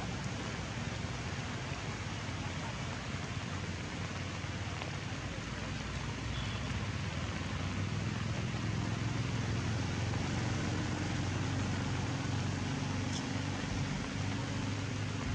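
Steady hiss of rain in the forest over a low, steady drone that grows slightly louder about halfway through.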